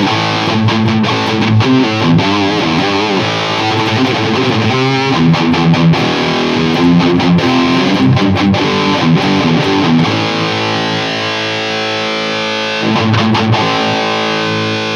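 Distorted electric guitar (Schecter Banshee 6 FR) playing through a Hughes & Kettner Tubeman Plus tube preamp at full gain with its mid boost on, into an ENGL 2x50 EL34 power amp: a riff of changing notes with short muted strokes, then a chord left ringing from about ten seconds in, with a brief flurry of picking near the end.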